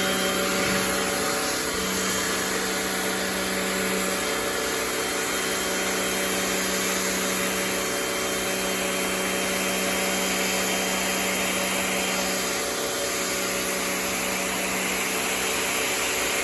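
Rock&Rocker HWY12 electric pressure washer running steadily, its motor and pump humming under the hiss of the water jet spraying concrete.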